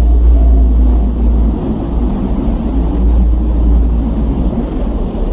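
A deep, steady rumbling drone with faint wavering tones above it, presented as the sound of one of the solar system's planets.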